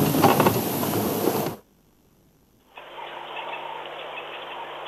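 Rumbling wind or vehicle noise that cuts off abruptly about a second and a half in, followed by a second of dead silence. Then a duller, muffled background noise with a steady low hum comes back, as if the sound feed dropped out and switched.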